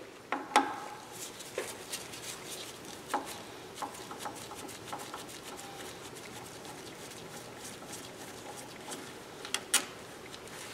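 Scattered light clicks and taps of a screwdriver and small parts being handled against the metal housing of an Espar coolant heater during teardown, with two sharper clicks near the end.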